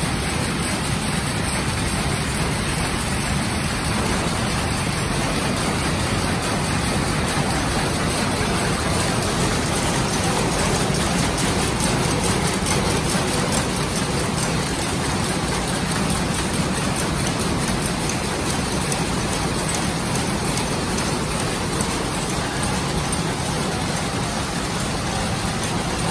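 Jacquard power looms running at full speed: a steady, dense mechanical clatter of the weaving action.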